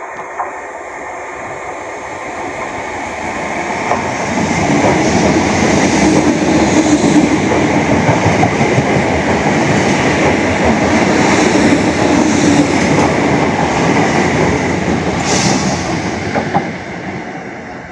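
Passenger train passing through a station, with wheels clicking over the rail joints: it grows louder over the first few seconds, runs past loudly for about ten seconds, and fades near the end.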